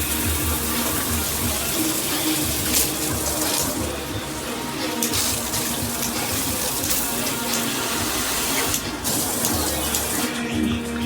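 Water spraying steadily from a handheld/rain shower head, an even rushing hiss. The highest part of the hiss drops away near the end.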